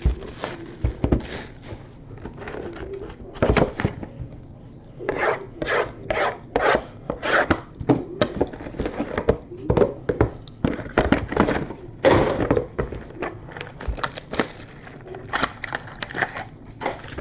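Trading cards being handled: a run of short rubbing swipes, card against card, irregular and several a second at times.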